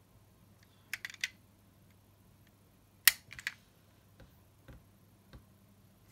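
Small clicks and taps from a 1:32 diecast DeLorean model car being handled and turned in the fingers: a quick cluster about a second in, a sharper click about three seconds in with a few smaller ones after, then a few faint knocks.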